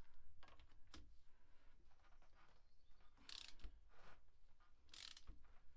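Near silence: a few faint clicks of a wrench on the engine's cylinder-head bolts and two short rustles, over a low hum.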